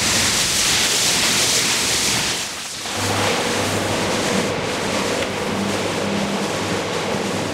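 Water jet hissing steadily as it sprays onto a soaked rug. About three seconds in, a rotary scrubbing machine takes over, its motor giving a steady low hum while its brush works through the soapy rug.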